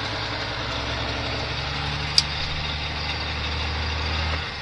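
Caterpillar 3406E inline-six diesel pulling a loaded Freightliner FLD120 slowly through a wide turn, heard from inside the cab: a steady low drone that strengthens partway through, then drops away sharply just before the end. One sharp click about two seconds in.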